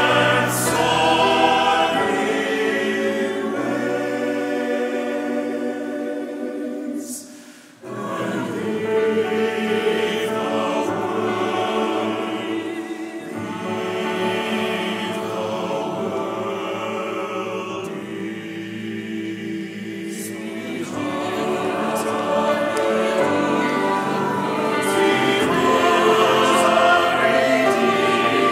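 Mixed choir singing a hymn with grand piano accompaniment, in sustained chords. The music briefly falls away a little under a quarter of the way in, then resumes and swells toward the end.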